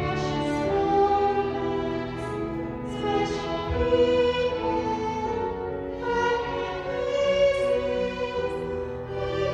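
Violins and piano playing a slow piece with long held notes.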